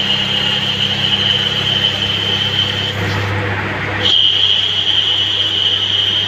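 CNC lathe turning a metal pin: spindle running with a low hum while the tool cuts, over a high steady whine that breaks off about three seconds in and comes back about a second later.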